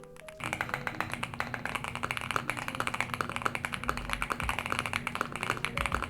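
Fast, continuous typing on a Luminkey75 mechanical keyboard: stock pre-lubed Diamond Avalon linear switches on a polycarbonate plate in an aluminium case, with clear polycarbonate Cherry-profile keycaps. The keystrokes start about half a second in and run on densely.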